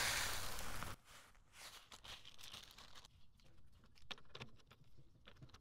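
Dry brewing grain poured from a plastic bag into a plastic bucket, a steady rushing hiss that stops about a second in. Then a bag crinkles softly, with a few light clicks and knocks.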